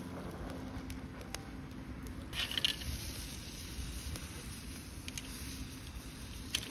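Scallops grilling in their shells over a wood fire, their juices bubbling and sizzling, with scattered small pops and crackles. There is a louder crackle about two and a half seconds in and a sharp pop near the end.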